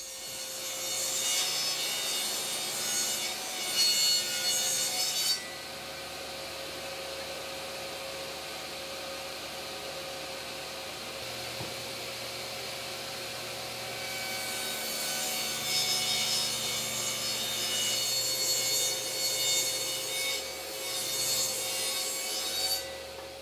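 Table saw cutting a groove along solid-wood cabinet door stiles, a rough ripping noise over the steady whine of the spinning blade. The cutting stops after about five seconds and the saw runs freely between passes, then cutting starts again about halfway through for the second pass.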